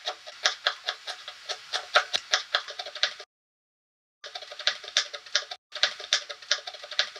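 Knife chopping quickly on a wooden cutting board: a run of sharp knocks, about four a second. It breaks off completely for about a second midway.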